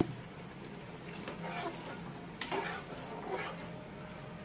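Metal slotted spatula stirring thick soya chilli gravy in a nonstick wok on the gas, about three wet scraping strokes over the gravy's faint sizzle and a steady low hum. A sharp click right at the start.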